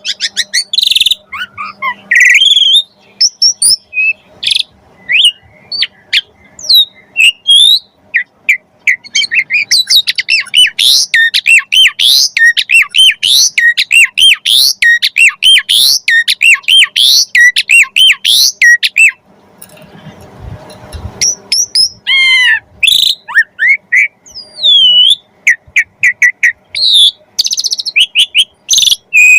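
Asian pied starling (jalak suren) singing hard: a fast, dense run of high chirps, squeaks and sliding whistles with mimicked phrases of other birds, pausing for a few seconds near the middle before starting again.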